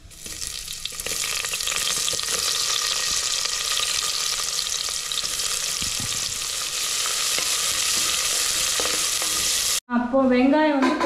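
Sliced red onions sizzling steadily as they fry in hot oil in an aluminium pressure cooker. The sizzle starts sharply as the onions go in and cuts off abruptly near the end.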